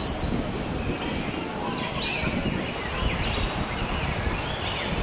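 Birds chirping and calling in short, gliding notes, with a steady low rumble of background noise beneath them.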